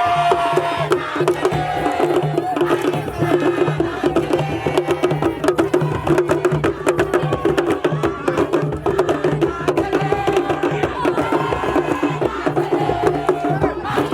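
Music with a fast, busy percussion beat.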